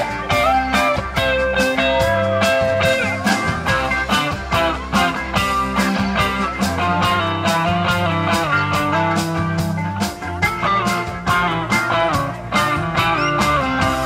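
Live rock band playing an instrumental stretch: electric guitar and bass guitar over a steady drum beat.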